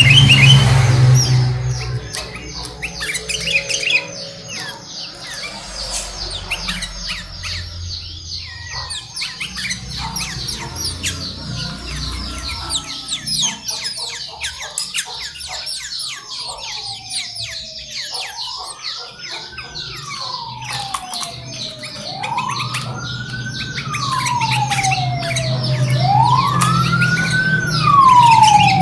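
Kutilang (sooty-headed bulbuls) chirping rapidly and without a break. From about halfway a siren starts wailing slowly up and down, about four seconds to each rise and fall, growing louder toward the end. A loud low rumble fills the first couple of seconds.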